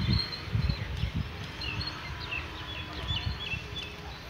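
Small birds chirping in short repeated notes, with a few dull low thumps in the first second or so.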